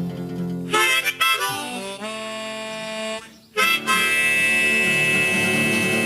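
Blues harmonica playing: short bent and sliding notes, then a long held chord from about halfway through. A guitar chord is still ringing under the very start.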